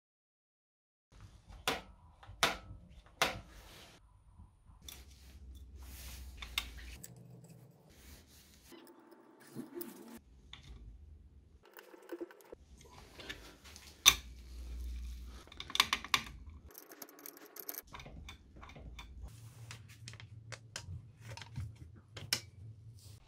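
Hands at work on a scooter's metal and plastic parts: clicks, taps and rattles from the brake cable, spring, screwdriver and plastic cover being fitted. Three sharp clicks come about two seconds in, and a single loud click about two-thirds of the way through.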